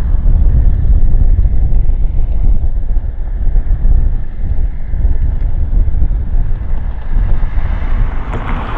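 Jet engines of an Airbus A330-300 at takeoff thrust: a loud, deep, steady rumble with wind buffeting the microphone. Near the end a brief rush of higher, hissing noise swells up.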